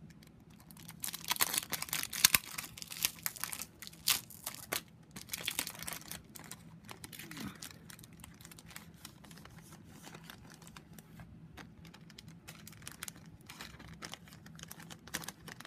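Packaging of a card-making kit crinkling and rustling as it is opened and its contents handled, with many sharp crackles that are busiest in the first six seconds or so and then thin out.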